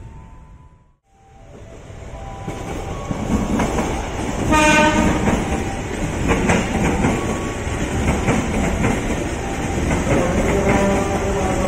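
KRL commuter electric train passing close by: after a brief fade near the start, its rolling noise builds and a short horn blast sounds about four and a half seconds in. Then a steady rumble follows, with wheels clicking over rail joints and some humming tones near the end.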